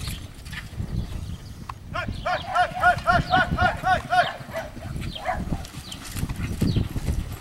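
Horses galloping over arena dirt during a team-roping run. About two seconds in comes a quick run of about eight short, high calls, some four a second, lasting about two seconds.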